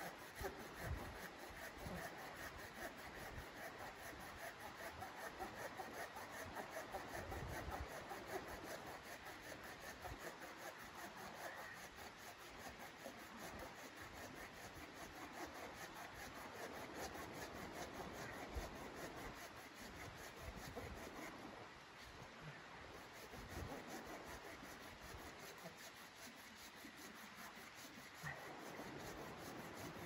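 Folding hand saw cutting through a log, steady back-and-forth rasping strokes of the blade in the wood.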